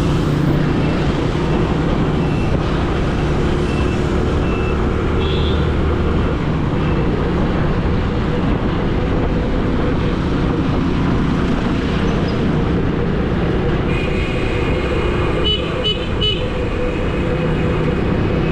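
Busy road traffic: vehicle engines running steadily under a constant traffic noise. Horns toot briefly a few times in the first six seconds, and a longer horn sounds from about fourteen seconds in, with several sharp beeps near its end.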